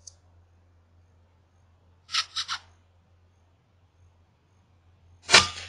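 A single shot from a suppressed FX Impact M3 .22 PCP air rifle near the end: one sharp crack with a short ringing after it. About two seconds in come three quick, soft clicks, over a faint steady low hum.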